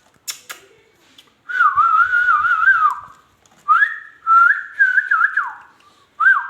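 Whistling in three warbling phrases, each a second or two long, the pitch wavering up and down.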